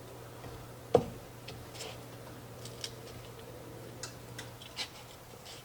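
One sharp knock about a second in, then light scattered clicks and taps of kitchen utensils and a bowl being handled, over a low steady hum.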